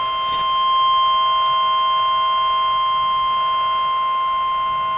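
Emergency Alert System attention tone: one steady, unbroken electronic tone held for the whole stretch, signalling that an emergency warning is about to be read.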